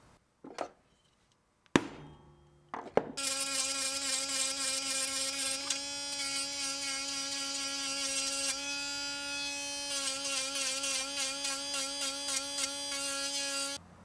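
A few sharp clicks, then a small handheld rotary tool with a sanding drum starts about three seconds in and runs with a steady high-pitched whine, sanding the edge of a piece of leather. It shifts slightly as it bears on the leather and cuts off just before the end.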